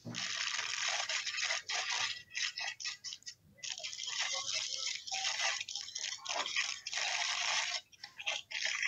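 Wrapping being torn and crinkled off a book by hand: dense crackling and rustling in long stretches with brief pauses, dying away shortly before the end.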